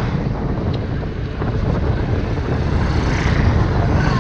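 Wind buffeting the microphone of a moving rider, a steady low rumble with road noise underneath.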